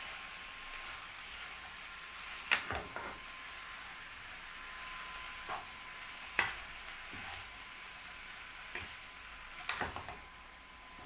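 Spoon stirring chicken drumsticks with spices in a pan, knocking and scraping against the pan in sharp clanks a second or more apart, with a cluster of several near the end.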